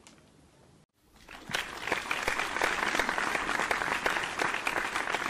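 Crowd applause, coming in after about a second of near silence and holding steady as dense clapping.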